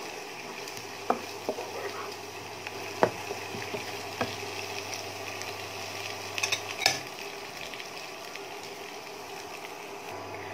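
Sliced onions and ginger-garlic paste sizzling in hot oil while being stirred with a wooden spatula, with a few sharp clicks of the spatula against the pan.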